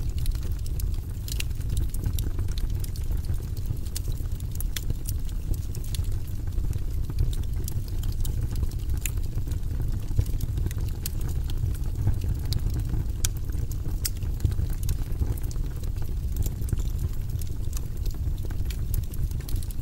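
Wood fire burning in a fireplace: a steady low rumble with scattered, irregular sharp crackles and pops from the burning wood.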